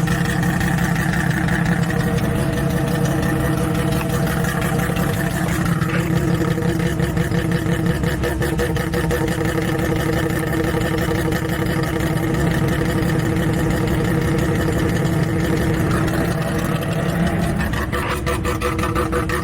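Bridgeported 13B rotary engine in a 1974 Mazda REPU pickup running loudly and steadily at a raised idle, warming up from a cold start with a makeshift choke.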